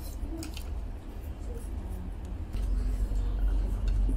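A metal spoon clinking and scraping a few times on a plate of sambhar vada, over a steady low rumble that grows louder about two-thirds of the way through.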